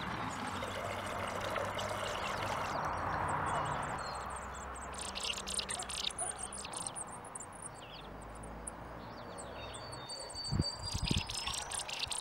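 Water from a hose pouring into a galvanized metal watering can, a steady rush that fades out about four seconds in. After that, birds chirp and whistle, and there are a couple of low thumps near the end.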